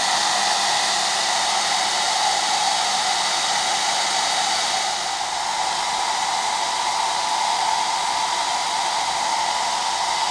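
Handheld hair dryer running steadily on its low heat setting: a continuous rush of air with a steady whine, blowing warm air onto a headphone earpad to make it pliable.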